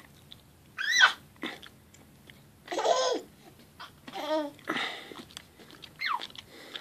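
A baby babbling in about five short, high-pitched vocal sounds spread out with quiet gaps between them.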